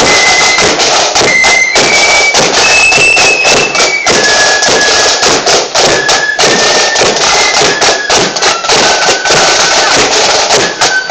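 Marching flute band playing loudly: a high flute melody of held notes over heavy, steady drumming.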